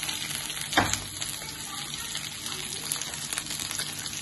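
Chopped onions, green chillies and curry leaves sizzling and crackling in hot oil in a frying pan, stirred with a silicone spatula. There is one sharper tap about a second in.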